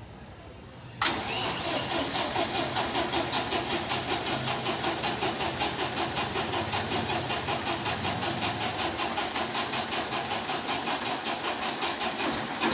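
Freshly rebuilt Massey Ferguson 1035 DI tractor's three-cylinder diesel engine starting abruptly about a second in, then running with a steady, even pulsing beat.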